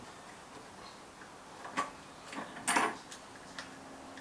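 A few short, separate clicks and scrapes from hand work on a mountain bike's handlebar, the loudest a brief rasp near the end, as the worn grips are being taken off.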